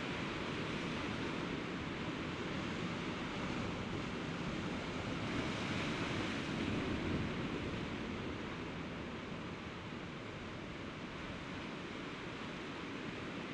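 Sea surf washing against a rocky shore, a steady rush that swells a little about midway and then eases.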